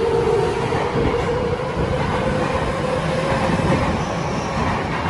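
Tozai Line subway train running along the platform: wheels rumbling and clattering on the rails under a motor whine that rises slightly in pitch, the sound of a train gathering speed. It begins to fade near the end.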